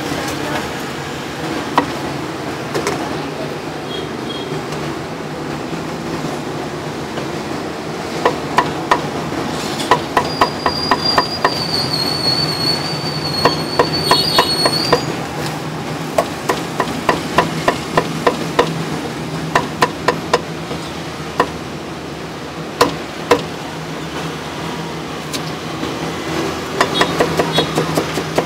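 Cleaver chopping meat on a thick wooden chopping block: runs of sharp knocks, about four a second, with pauses between them, over steady street background noise. A high thin whistle sounds for a few seconds around the middle.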